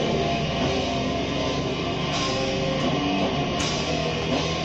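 Grindcore recording: distorted guitar and drums in a dense, noisy wall of sound with no let-up.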